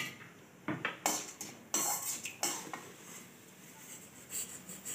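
A steel ladle clinking and scraping against a stainless steel kadai in a string of sharp, uneven clicks, as urad dal is added to mustard seeds in hot oil for a tempering.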